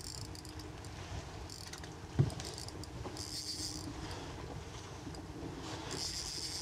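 Handling noise in a fishing kayak: one sharp knock about two seconds in, and several short hissing rustles, over a low steady rumble of wind and water.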